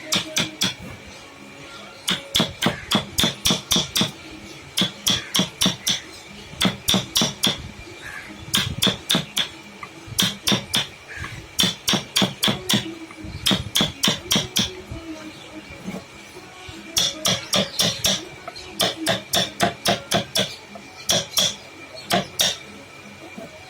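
Hammer tapping a carving chisel into wood in quick bursts of several sharp strikes, about five a second, with short pauses between bursts.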